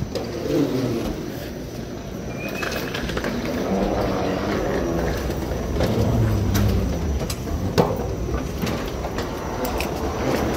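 Airport terminal background noise on a moving escalator: a steady low hum with indistinct, muffled voices and scattered clicks and knocks, the sharpest about eight seconds in.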